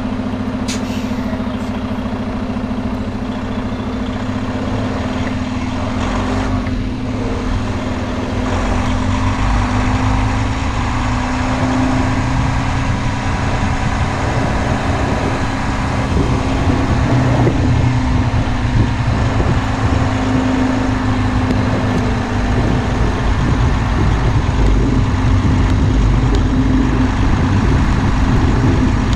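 Freightliner Cascadia semi truck's diesel engine idling steadily.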